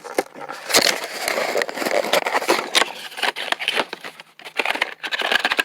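Parts packaging being handled and pulled at, a dense crackling and crinkling with many small clicks, as a hard-to-open package is worked open.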